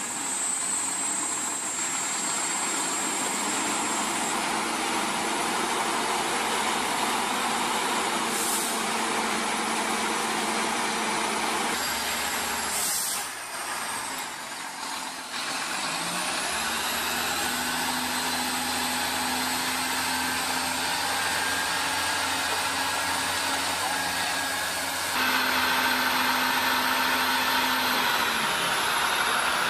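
Volvo tanker truck's diesel engine working hard as it pulls through deep mud, under a steady hiss. About halfway through, after a short dip, the engine note rises and holds higher, and it grows a little louder near the end.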